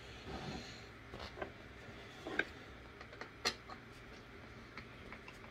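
Quiet handling sounds: a few faint, scattered clicks and taps of a wood screw and a hand screwdriver being handled against plywood panels.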